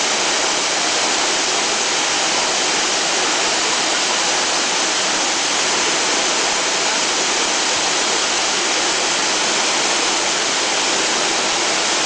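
Waterfall pouring, a loud, steady rush of falling water with no let-up.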